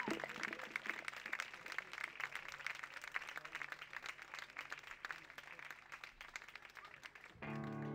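Audience applauding, the clapping gradually thinning out. Near the end a held musical chord comes in.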